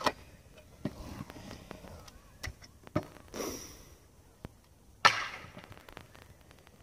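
Stunt scooter riding a concrete skatepark bowl: wheels rolling on the concrete, with sharp clacks of the deck and wheels striking the surface, the loudest right at the start as it drops in and again about five seconds in.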